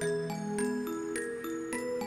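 Background music: a light tune of struck notes that ring on, several pitches at a time.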